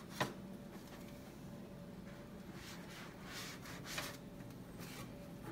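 Faint rubbing and dabbing of paint-covered rubber balloons pressed onto paper masks and into a plastic paint tray, with a sharp tap a fraction of a second in.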